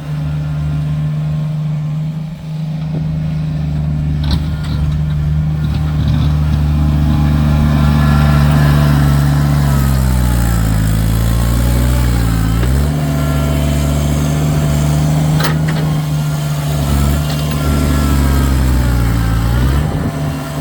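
Kubota tractor's diesel engine running steadily. About halfway through, and again near the end, its note drops and then picks back up.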